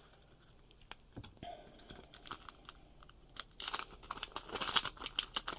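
Wax-paper wrapper of a 1990 Fleer basketball card pack being torn open and crinkled, with a few light clicks at first and dense crackling from about three and a half seconds in.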